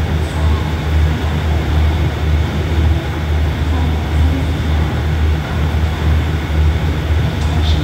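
Test train on an elevated railway, giving a steady low rumble with an even noise over it.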